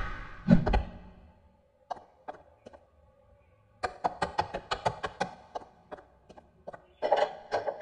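Cartoon footstep sound effects: two heavy thuds in the first second, then a quick run of sharp knocking steps as the character climbs stairs, slowing to sparser steps near the end.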